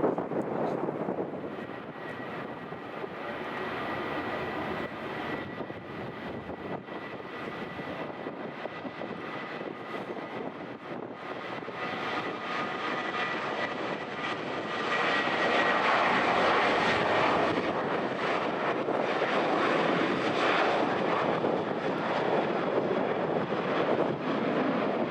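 Jet engines of a Boeing 737-800 with a steady high whine over a rushing noise; about halfway through, the rushing grows louder as the whine fades into it.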